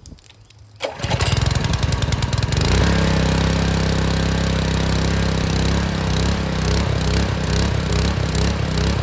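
Honda GX200 single-cylinder engine on a pressure washer starting about a second in, catching with a rapid popping and then settling into steady running. About six seconds in its note turns uneven and pulsing.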